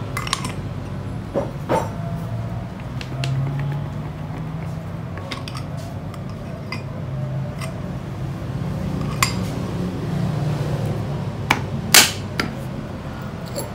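Metal parts of a PS120 starter motor clinking and knocking as its end cover is worked onto the housing by hand, with scattered taps and a sharper knock near the end.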